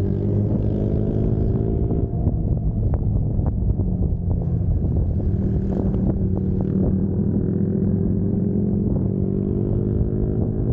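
Motorcycle engine running under way, heard from on the bike itself. The note eases off over the first couple of seconds, turns rougher with a few sharp clicks through the middle, then steadies and climbs slightly near the end.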